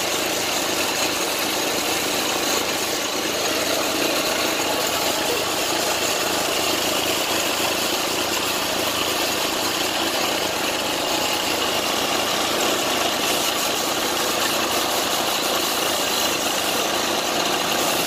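A small engine running steadily at idle.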